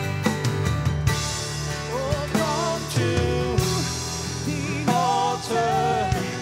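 Worship band playing: a woman singing over acoustic guitar and a drum kit, with drum hits through the song.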